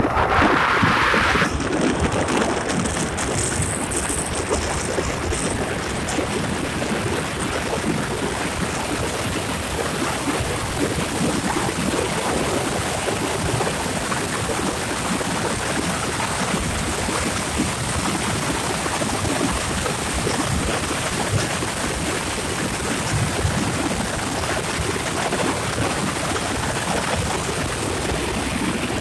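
Steady rushing wind and road noise from a car driving along a road, with a brief louder rush in the first second or so.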